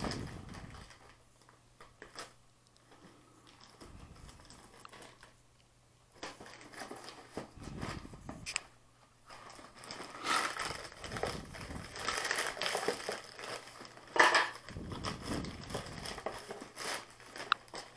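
Plastic poly mailer and inner plastic wrapping crinkling and rustling as the mailer is cut open with scissors and a boxed item is pulled out. Only a few faint clicks at first, then busy crinkling from about six seconds in, with one sharp crack about two-thirds of the way through.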